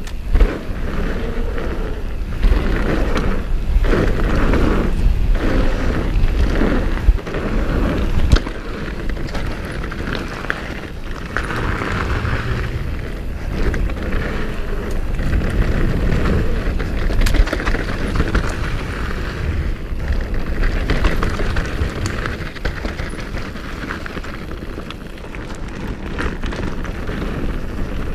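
Wind rushing over the action camera's microphone and the tyres of a Nukeproof Pulse downhill mountain bike rolling fast over a dirt and gravel trail, with a heavy low rumble and occasional sharp knocks as the bike rattles over bumps.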